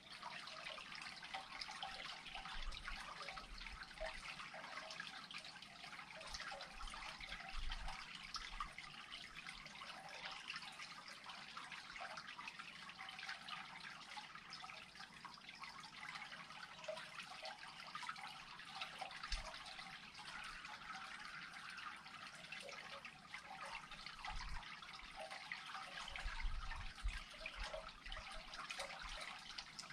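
Water steadily trickling as a pool drains into an unclogged culvert.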